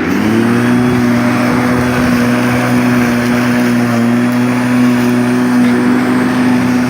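Corded electric lawnmower motor switched on, its whine rising in pitch over the first half second as it spins up to speed, then running at a steady pitch.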